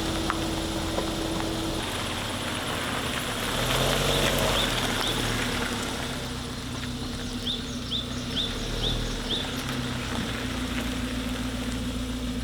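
Car engine running steadily, its low hum shifting in pitch now and then, with a bird chirping in short runs of three to five quick notes.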